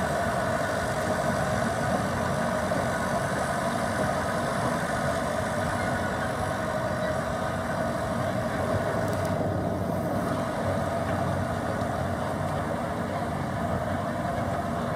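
Diesel engine of a crawler dozer running steadily under load as it tows a disabled mud truck out of the bog.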